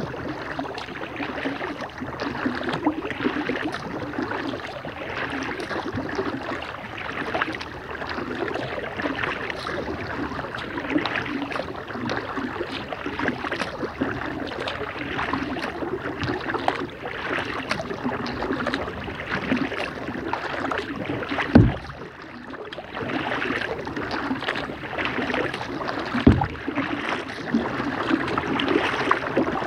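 Kayak paddle strokes splashing and dripping in calm river water, a steady uneven swish. Two short low thumps near the end.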